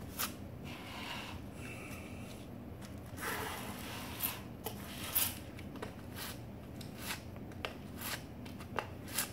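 Small plastic spatula scraping grout across tile joints and pulling it back, in irregular rubbing strokes.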